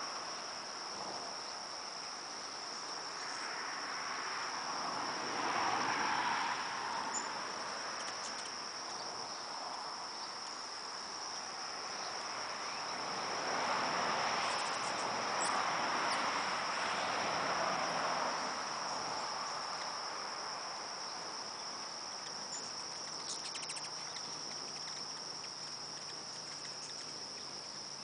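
Insects giving one steady, unbroken high-pitched trill throughout, with a soft rushing noise swelling up twice.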